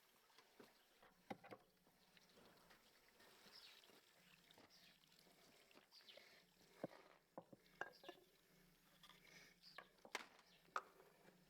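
Near silence, with a few faint scattered clicks and ticks and a low steady hum.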